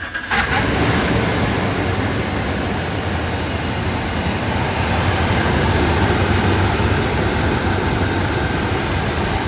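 Dodge 4.7 L V8 engine starting up and catching just after the start, then running steadily. This is the first start after a water pump and serpentine belt replacement.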